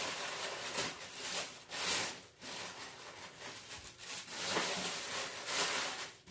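Rustling and crinkling of a plastic bag and clothing being handled and pulled out of a box, in uneven surges.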